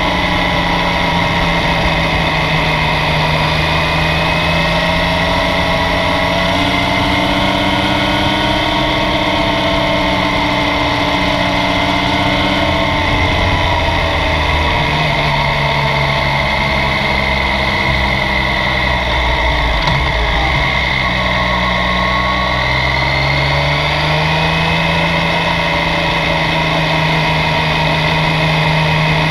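Yamaha Tracer 900's three-cylinder engine running as the motorcycle rides along, its note rising and falling with the throttle. The engine speed drops about halfway through and climbs again near the end.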